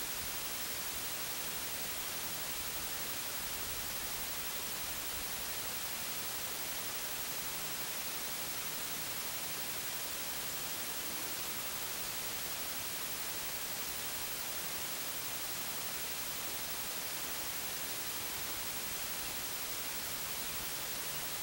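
Steady static hiss, even throughout with nothing standing out from it; the bear's movements are not heard.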